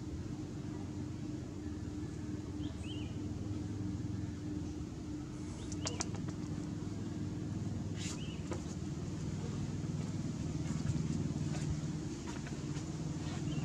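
A steady low mechanical hum, with a few faint high chirps and sharp clicks over it.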